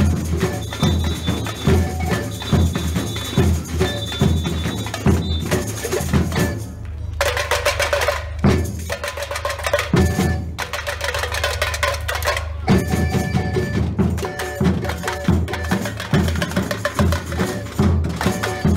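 Samba drum group playing a fast samba rhythm on surdo bass drums, snares and other hand percussion. About seven seconds in the bass drums drop out for a break of several seconds, marked by a couple of single hits, then the full beat comes back in.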